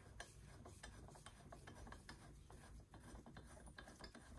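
Faint ratchet wrench clicking in quick, uneven strokes as a bolt is run in on the engine's timing-belt cover.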